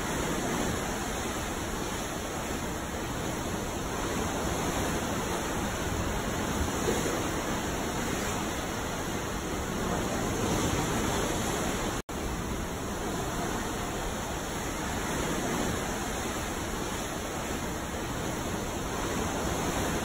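Ocean waves: a steady rush of water with slow, gentle swells in loudness. The sound drops out for a split second about twelve seconds in.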